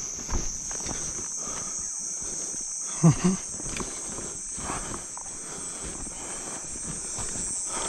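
Steady high-pitched chorus of night insects, with footsteps and rustling of someone walking through brush. About three seconds in, two short, low grunt-like sounds are the loudest thing heard.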